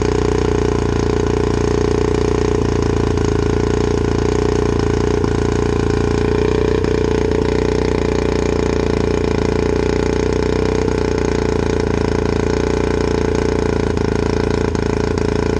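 Two-stroke outboard motor idling steadily with its cowling off, run on a garden-hose flush attachment.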